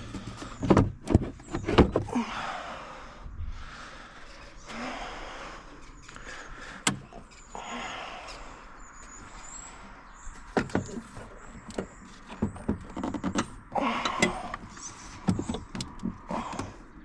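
Clunks, knocks, rattles and plastic scraping of hands and tools working on parts in a car's engine bay, with a single sharp knock about seven seconds in.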